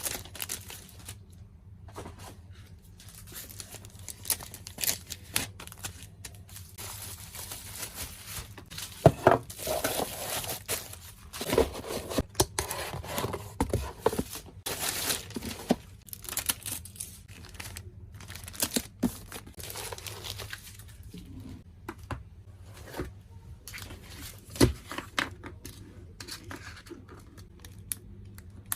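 Tape being pulled and torn and packing material crinkled by hand, in irregular rustles with scattered small clicks, loudest through the middle stretch.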